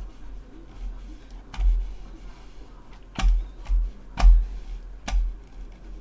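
Computer mouse and keyboard being worked on a desk: about five sharp clicks, each with a dull thump, irregularly spaced, the loudest a little past four seconds in.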